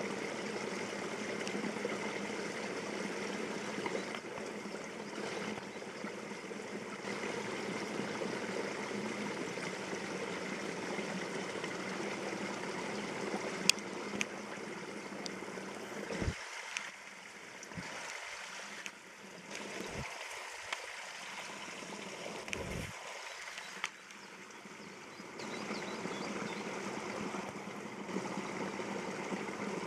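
Steady rush of flowing water. Around the middle come a few sharp clicks and knocks from the camera being handled.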